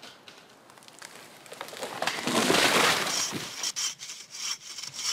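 A swelling crash and crackle of wood and branches about two seconds in, then a hand saw rasping through a log in steady strokes, about two or three a second.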